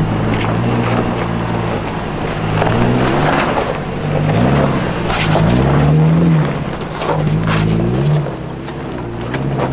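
Toyota Tacoma pickup's engine revving up and down repeatedly as it crawls over rocks, with the tyres crunching and scrabbling on loose rock and dirt. The revs drop back and steady about eight seconds in.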